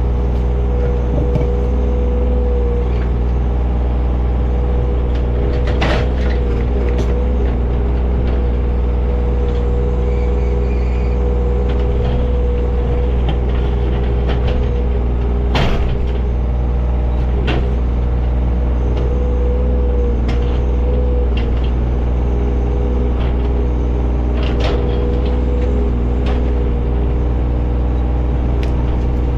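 John Deere 35G mini excavator's diesel engine running steadily under work, with a steady whine over it. A few sharp knocks break through now and then.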